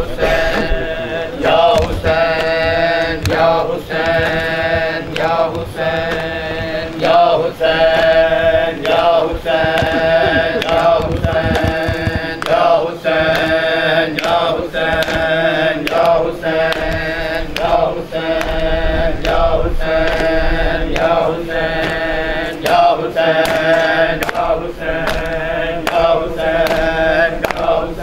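Men's voices chanting together in mourning, with the rhythmic slap of hands on bare chests (matam) at about one beat a second.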